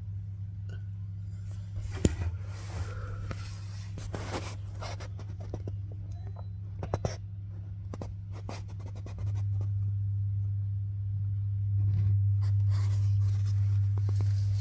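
A steady low hum that steps louder about nine seconds in, with scattered light clicks and scrapes of handling.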